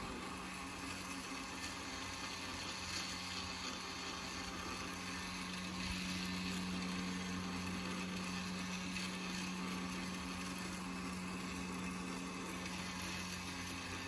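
Greenworks 80V cordless brushless tiller running steadily as its tines churn through weedy soil: a steady electric motor hum over the noise of dirt being dug.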